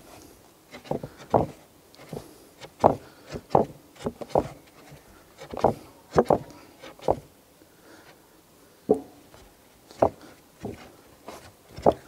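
Pizza dough being kneaded by hand on a wooden board: irregular soft thumps and slaps as the dough is pressed and folded against the wood, about one or two a second, with a short lull about two thirds of the way in.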